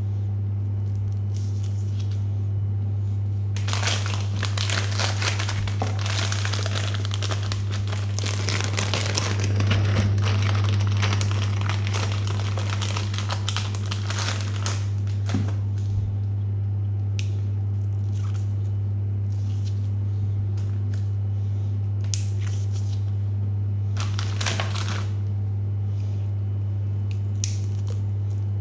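Packaging crinkling and rustling as it is handled, in a long stretch and then a couple of short bursts, over a steady low hum.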